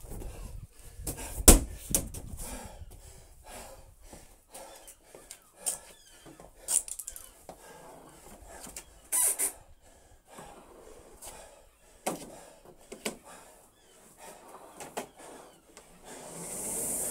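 A medicine ball lands with a heavy thud about a second and a half in. Scattered knocks, clicks and scuffs follow as gear is handled on the rowing machine, and near the end the air-resistance flywheel of the rowing machine starts to whoosh as the first strokes are pulled.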